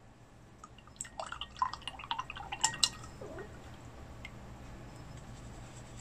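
A quick run of small clicks and clinks lasting about two seconds, starting about a second in: painting supplies being handled on a table, with the clear plastic box and the small glass jars knocking lightly.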